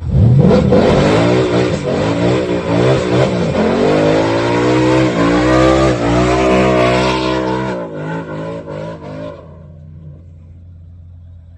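A car engine revving hard, its pitch rising and falling through repeated revs, then dying away about nine seconds in.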